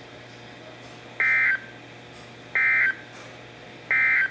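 Emergency Alert System end-of-message signal: three short bursts of SAME digital data tones, a rapid two-pitch warble about 1.4 s apart, marking the end of the alert. A low steady hum from the broadcast runs underneath.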